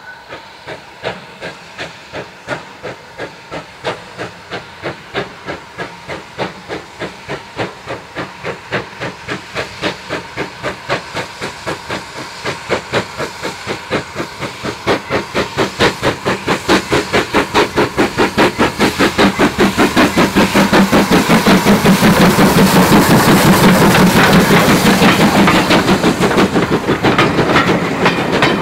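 GWR Small Prairie No. 4555, a two-cylinder 2-6-2 tank steam locomotive, working under steam with an even chuffing exhaust beat. The beats run about two a second at first and gradually quicken, growing steadily louder as the engine nears and passes, loudest about three-quarters of the way through.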